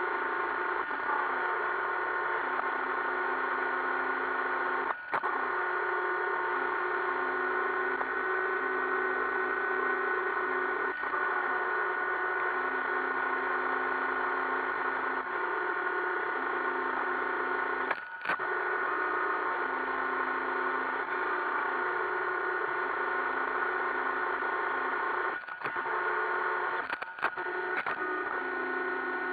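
iRobot Roomba 560 robot vacuum running, a steady whir with several steady tones, one of which comes and goes. It is broken by a few brief knocks, about five seconds in, at about eighteen seconds, and several close together near the end.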